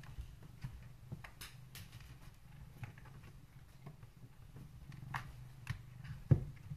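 Quiet handling sounds: scattered light clicks and taps, with one sharper knock about six seconds in, over a faint, steady low hum.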